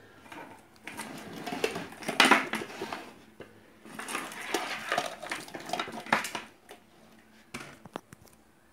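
Clattering and knocking of hard objects being handled, in two spells of about two seconds each, then a few sharp clicks near the end.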